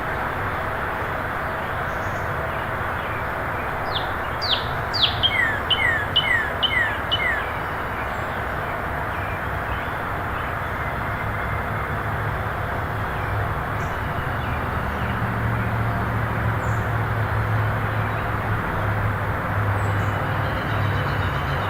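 Steady outdoor background hiss, with a songbird singing a quick run of about six falling whistled notes about four seconds in. From about fifteen seconds a low steady hum comes in underneath.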